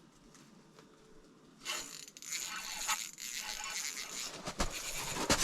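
Fishing reel clicking and rattling as line is wound in, starting under two seconds in, with a pike on the line.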